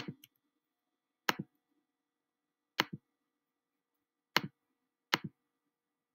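Computer clicks: five sharp click-and-release ticks spaced a second or more apart, the last two closer together, as the computer is clicked through from the slideshow to the web browser.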